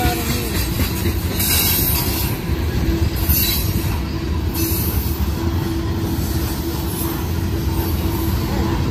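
Freight cars of a CSX freight train rolling past close by, steel wheels rumbling steadily on the rails, with a few brief high-pitched hissing surges about a second and a half, three and four and a half seconds in.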